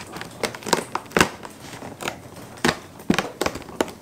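Advent calendar compartment being opened by hand and its packaging handled: an irregular run of sharp clicks and crackles, several of them louder.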